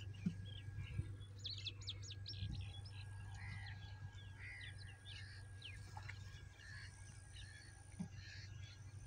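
Small birds chirping and calling in quick, scattered notes over a low, steady hum.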